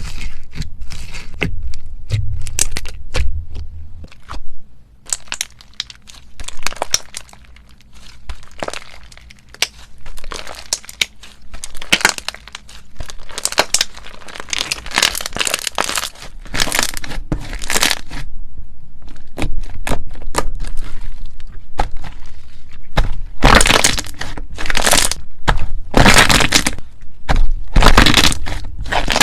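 Ice crunching and cracking as it is squeezed and pressed in slime: many sharp cracks and crackles, coming thicker and louder in the last few seconds.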